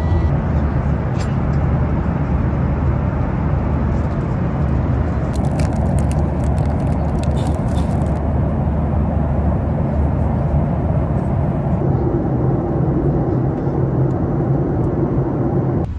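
Steady vehicle noise: a continuous low rumble with a hiss over it, its tone shifting slightly about twelve seconds in.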